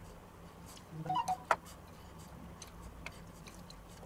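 Light, scattered ticks and clicks of diced bell pepper pieces dropping by hand onto crisp taco shells in a metal baking dish, with a short louder cluster and a sharp click about a second and a half in.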